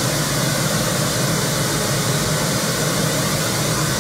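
Pink noise test signal playing from the left speaker of a pair of studio monitors, a steady even hiss across the whole range. It is the level-matching signal for calibration, measuring about 75 dB SPL at the listening position.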